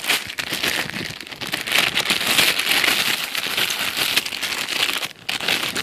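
Thin plastic bag crinkling and crackling as it is handled right at the microphone to pull a toy airplane out of it; the crackling is continuous and stops near the end.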